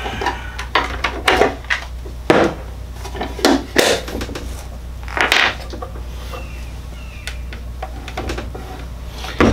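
Handling noises from a Milwaukee M18 cordless cut-off saw: clicks and knocks of plastic housing as the M18 battery pack is pulled off and set down on a wooden bench, then more scattered knocks and rattles as the saw is moved about.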